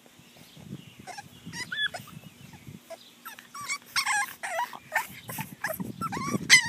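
English bulldog puppies whimpering and yipping in short, high squeaks. The squeaks come more often around the middle and near the end, over some rustling.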